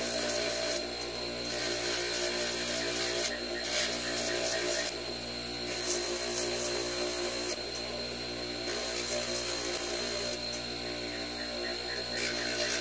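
Small bench polishing wheel motor running steadily, with the steel revolver hammer pressed against the wheel in passes so that a scratchy rubbing rises and eases every few seconds as pits are worked out and the brushed finish is put back.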